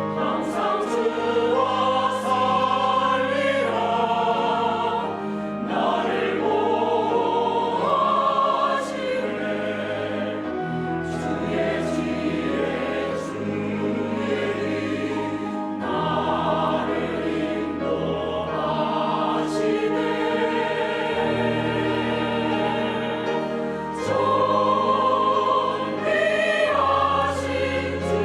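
Church choir singing a slow hymn anthem in Korean over sustained low accompaniment notes, the voices swelling and settling phrase by phrase.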